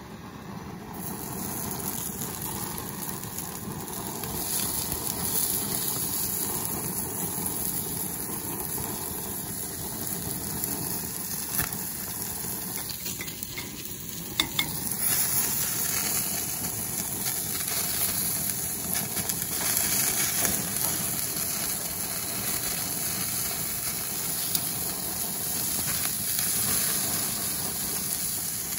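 Baby octopus sizzling on a hot gas grill's grate, starting about a second in and running steadily, with a few sharp clicks around the middle.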